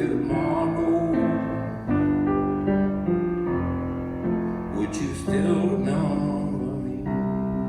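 Live band playing an instrumental outro, with held keyboard chords that change every second or so.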